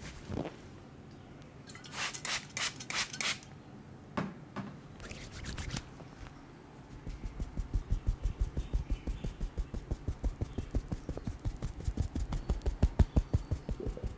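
Hands massaging a head and neck: short bursts of rubbing on skin and hair, then from about halfway a rapid, steady tapping massage at about six strokes a second.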